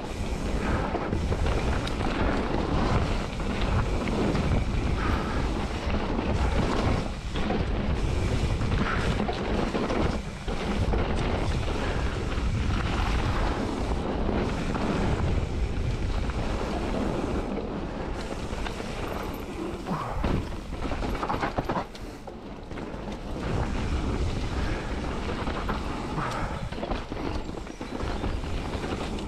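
Mountain bike descending a gravel singletrack at speed: wind buffeting the camera microphone over the steady crunch and roll of the tyres on gravel.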